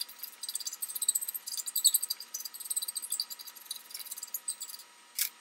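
Flat hand file rasping in quick back-and-forth strokes over a fresh weld where a steel ring is joined to an auger bit, smoothing the rough weld bead. The filing stops shortly before the end, followed by a single sharp click.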